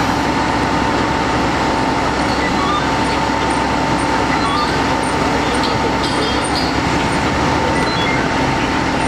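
Iveco fire engines running at the scene: a loud, steady mechanical drone with a constant high whine held throughout.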